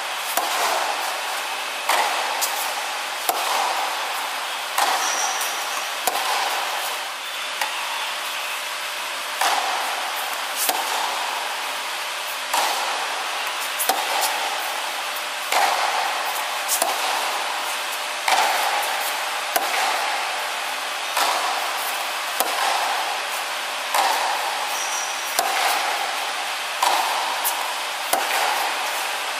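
Tennis rally on a hard court: rackets strike the ball and the ball bounces, a sharp pop about every second or so, over a steady background hiss.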